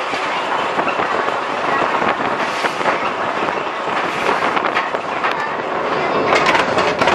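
Mechanical sheet-metal guillotine shear running with a steady rattle while a stainless steel sheet is slid across its bed, then a cluster of sharp metallic clacks near the end as the treadle is pressed and the blade comes down.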